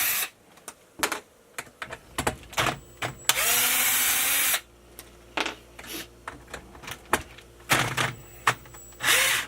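Power drill with a hex bit in short runs on the RC truck's screws, its motor whining up and down, twice briefly and once in a longer spell; between the runs, sharp clicks of the bit and parts being handled. The screw heads are stripped, so the bit is not biting cleanly.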